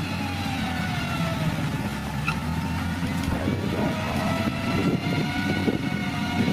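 A heavy vehicle engine running steadily, its pitch easing down over the first few seconds, with a few short knocks and clanks in the second half.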